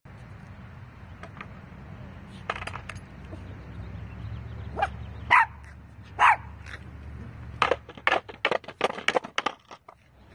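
A small dog barking: a few single barks, then a quick run of barks near the end, about five a second. Under the first barks runs a low steady rumble of skateboard wheels rolling on concrete, which stops about seven seconds in.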